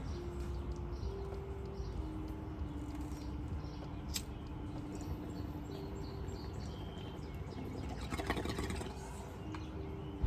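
Small birds chirping in short calls over a low steady hum that shifts pitch in steps, with a brief hiss about eight seconds in.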